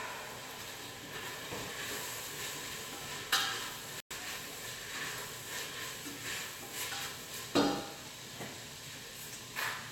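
Food sizzling in a frying pan, a steady hiss, with a few sharp knocks of a utensil against the pan about three seconds in, near eight seconds, and several more near the end.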